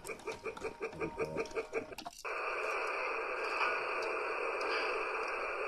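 Toy steam locomotive's sound effects from its small speaker: a rhythmic chugging for about two seconds, then a sudden steady hiss of steam that lasts until near the end.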